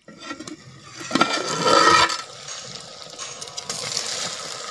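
A steel lid clatters and scrapes against the pot about a second in, ringing briefly. Then a steady sizzle follows as the chicken cooks down in the pan.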